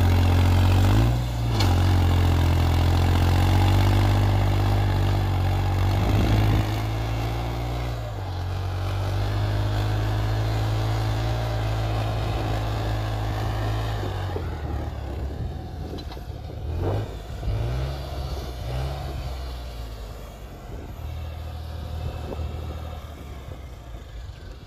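Modified New Holland tractor's diesel engine working under load as it pulls a heavy disc harrow through ploughed soil. It is loud as the tractor passes close, then fades as it moves away, its pitch rising and falling a few times in the second half.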